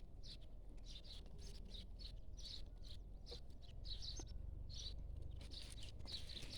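Small birds chirping: short high chirps repeating about twice a second, over a steady low rumble.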